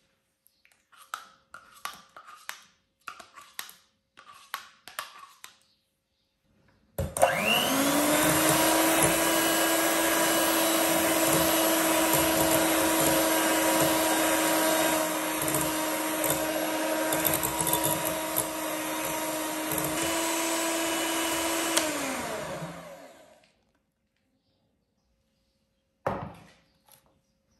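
Electric hand mixer with its beaters whipping cream in a glass bowl. Its motor spins up with a rising whine about seven seconds in, runs steadily for about fifteen seconds, then winds down. Before it comes a series of short soft knocks and scrapes, and near the end one more brief knock.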